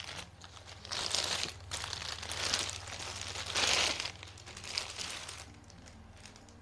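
Clear plastic bag crinkling in several bursts as it is pulled off a new BB gun, dying away over the last couple of seconds.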